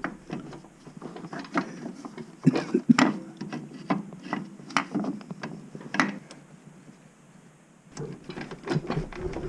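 Irregular clicks, knocks and scrapes of a Honda Fourtrax TRX300FW starter motor being pushed and worked into its bore in the engine case, its oiled O-ring easing it in, with a quieter pause shortly before the end.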